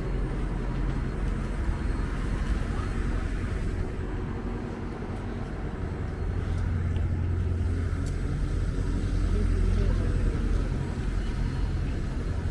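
City road traffic, led by the low, steady engine hum of a double-decker bus that grows louder a little past the middle and eases near the end, with faint voices of passers-by.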